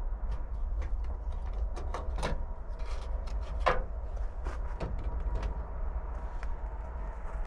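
Irregular light clicks and knocks, with two short squeaks, from hands working plastic and metal parts at the front end of a square-body Chevy pickup, over a steady low rumble.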